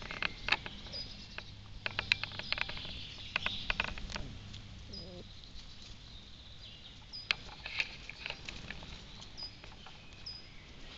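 Close crackles and clicks of a Dalmatian puppy nosing and mouthing in dry grass, come in irregular clusters, busiest in the first half. A bird gives a few short high chirps in the background.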